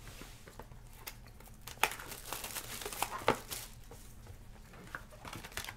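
Plastic shrink wrap being torn and crumpled off a trading-card box, with a few sharp crackles.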